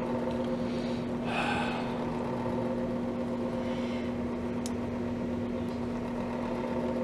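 A steady low hum made of several even tones, with a brief hiss about a second and a half in and a faint click near the middle.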